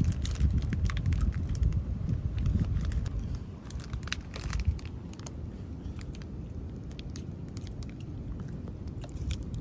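Foil-lined plastic wrapper of a chocolate-coated ice cream bar being torn open and peeled back: crinkling and crackling, busiest in the first few seconds and thinning out after. A steady low rumble runs underneath.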